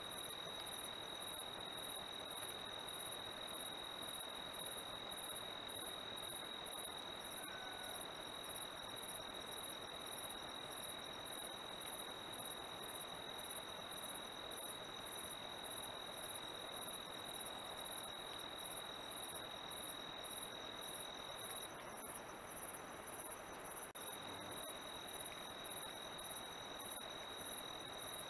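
Night insects, crickets or katydids, chirping: a very high pulsing chirp about twice a second, with a steady high-pitched drone under it that stops for a couple of seconds near the end.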